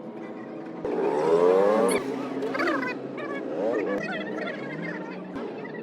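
Old car horn sounding in uneven, warbling honks. A loud blast with rising pitch comes about a second in, followed by several shorter honks that waver and slide up and down in pitch.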